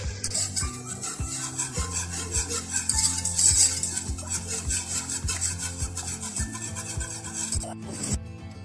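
Wire whisk scraping around the bottom of a nonstick pot while stirring melting chocolate, in even rhythmic strokes, two or three a second. The constant stirring keeps the chocolate from catching and burning on the bottom.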